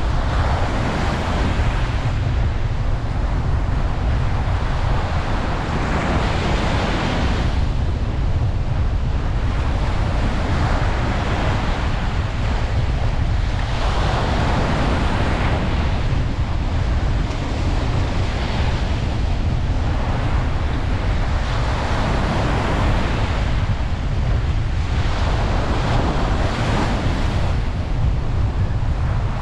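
Ocean surf washing onto a beach: a continuous rushing that swells as waves break every several seconds, over a steady low rumble.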